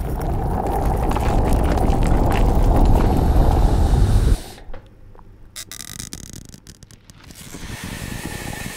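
A loud rushing, rumbling noise that builds for about four seconds and cuts off suddenly, followed by quieter scattered clicks.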